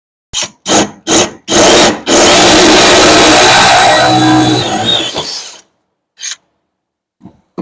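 Handheld power drill, with the trigger blipped four times in quick succession and then held for a run of about three and a half seconds that winds down.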